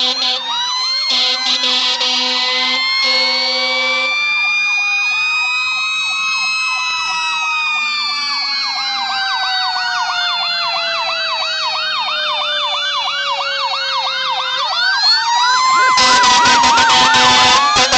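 Several fire apparatus sirens sounding at once: a slow wail that rises and then falls over several seconds, overlapped by a fast electronic yelp, with three horn blasts in the first few seconds. The sound grows much louder and harsher near the end as the apparatus draws near.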